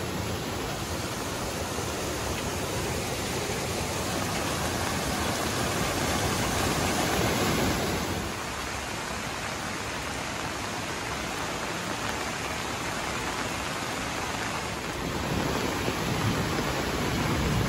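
Rain-swollen hillside stream rushing as a muddy torrent over rocks, a steady noise of water, with heavy rain falling. It drops a little in level about eight seconds in and grows again near the end.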